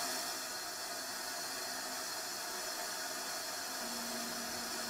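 Steady hiss of air venting out through the Red Bull Stratos capsule's dump valve as the capsule is depressurized.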